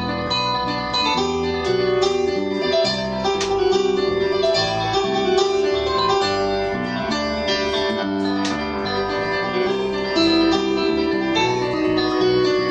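Live jazz: a Yamaha keyboard playing with a piano sound and an electric bass guitar playing notes under it, with held chords and notes.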